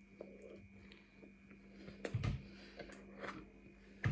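A person chewing and biting into a burrito close to the microphone, with soft wet mouth sounds and a louder bite about two seconds in.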